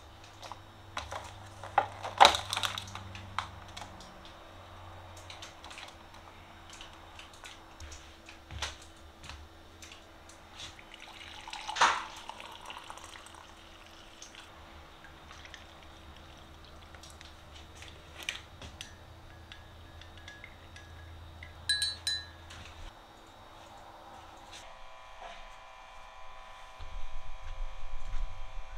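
Glass dishes clinking as they are set down on a towel-covered wooden board, and coffee pouring from a French press into a glass mug. A few seconds before the end a steady hum of several tones comes in.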